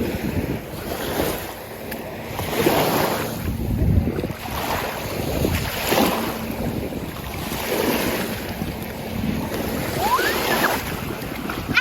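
Gusty wind buffeting the microphone over small lake waves washing onto the shore, the noise swelling in surges every couple of seconds.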